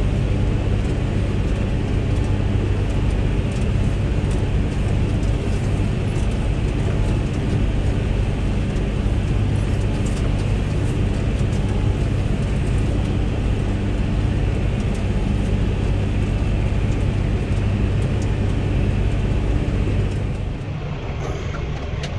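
John Deere tractor's engine running steadily under load while mowing hay, heard from inside the cab, with the hum of the mower machinery under it. Near the end the engine note drops and quiets as the work is finished.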